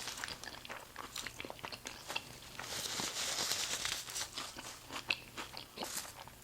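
Close-miked chewing of a mouthful of burger: many small wet mouth clicks, with a louder, hissier stretch about three seconds in.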